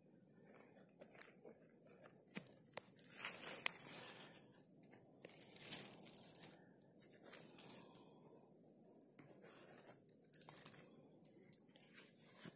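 Faint rustling and crunching of dry fir needles and forest litter as hands clear around a porcino mushroom, with scattered sharp crackles of small twigs and debris.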